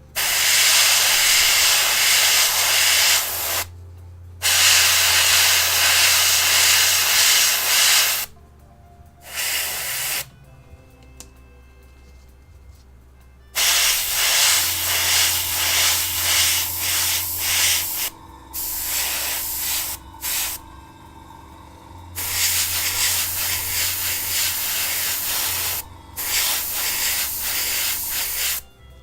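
Airbrush spraying metallic pearl paint in a series of hissing bursts, each lasting from under a second to about four seconds, with short pauses between them. A low hum runs underneath.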